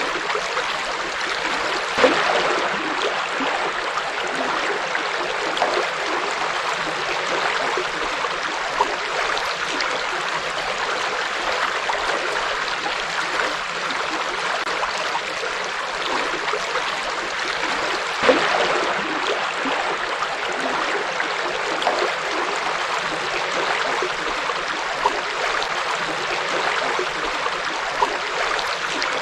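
A forest river flowing: a steady rush of water with gurgling, and brief louder splashes about two seconds in and again past the middle.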